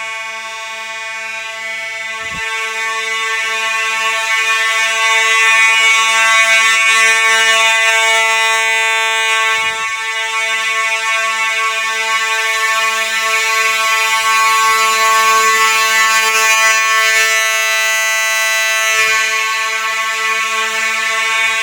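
Simplex fire alarm sounding a steady, continuous buzzy tone with no pulsing or change in pitch, with a few faint knocks underneath.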